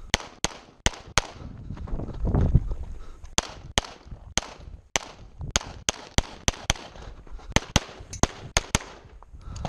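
Walther Q5 steel-frame pistol firing rapidly: close to twenty sharp shots, mostly in quick pairs a fraction of a second apart. There is a pause of about two seconds after the first four shots, and then a steady run of pairs to near the end.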